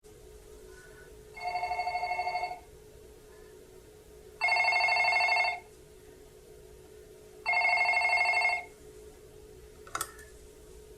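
Electric bell ringing three times, each ring about a second long with a rapid trill, about three seconds apart, followed by a single sharp click about ten seconds in.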